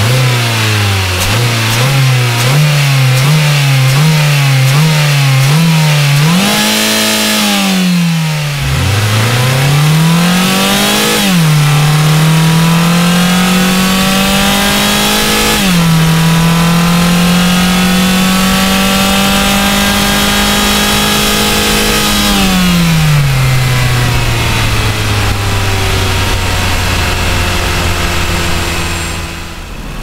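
Mazda 6 III's 2.0 SkyActiv-G four-cylinder petrol engine revving: about eight quick rev blips in a row, then a big rise and fall, then two long high-rev pulls that each drop off suddenly, before the revs fall away to a steady idle near the end.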